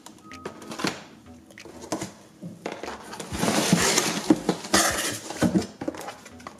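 Cardboard product boxes being handled and pulled out of a cardboard shipping carton: scattered knocks and taps, then a louder stretch of scraping and rustling with knocks from about 3 to 5.5 seconds in, as boxes slide against each other.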